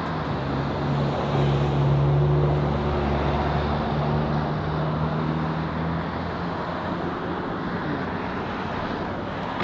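Street traffic noise, with the low hum of a nearby vehicle engine that swells about two seconds in and fades away by about six seconds.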